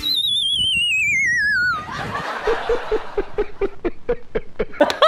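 A wobbling whistle slides down in pitch for nearly two seconds, like a comic falling sound effect. Rapid snickering laughter follows.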